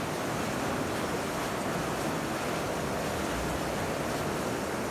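Steady wash of water splashing from several swimmers sprinting freestyle down a pool.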